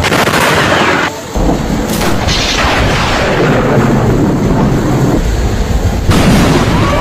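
Close lightning strikes: loud cracks of thunder with rumbling between them. A sharp crack about two seconds in trails off into rumbling, and another crack comes about six seconds in.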